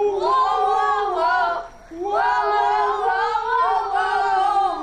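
Children singing in long, drawn-out high notes, in two phrases with a short break about two seconds in.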